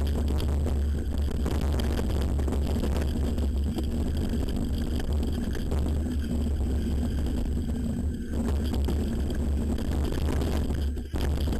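Steady low wind rumble on the microphone, with rattling and jolting from a downhill mountain bike running fast down a forest trail. The sound drops out briefly near the end.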